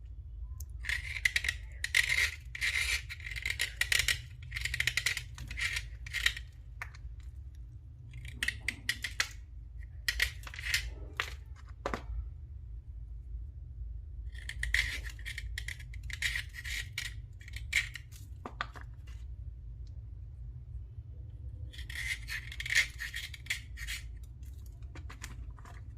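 Rapid scratchy scraping strokes on a thick slate as it is cleaned, in four spells of a few seconds each with short pauses between. A low steady hum runs underneath.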